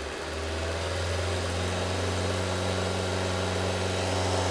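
2005 Honda Civic's 1.7-litre four-cylinder engine run up under load against the brakes in a brake-torque test, climbing during the first second and then holding a steady drone. The engine misfires under load, which the technician puts down to worn spark plugs.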